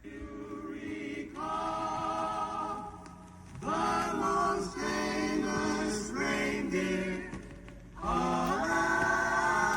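Choir singing in long held chords, in three phrases with short breaks between them.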